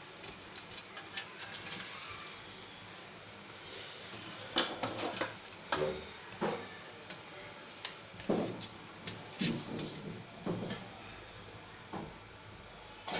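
Irregular clicks and knocks of a computer power supply's sheet-metal case and circuit board being handled and fitted together, the loudest knock about four and a half seconds in.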